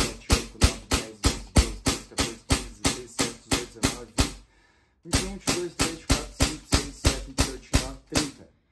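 Swiss Arms CO2 BB pistol dry-fired over and over with no BBs loaded, about three shots a second, each a sharp crack of released gas. The shooting pauses briefly about halfway, then goes on. The shots are being counted to gauge how much gas is left in the CO2 cartridge.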